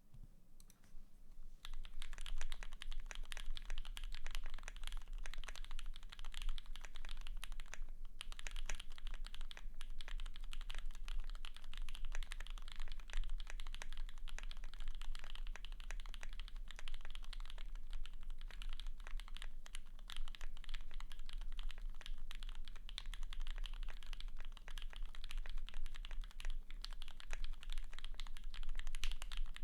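Fast continuous typing on a custom 60% mechanical keyboard with lubed Gateron PRO Yellow linear switches on a polycarbonate plate, PBT keycaps and greased stabilizers. The typing starts about a second and a half in, with a short pause a few seconds later.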